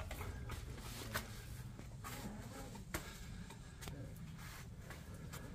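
Footsteps on dry leaf litter and dirt, irregular soft scuffs and clicks, with faint voices in the background.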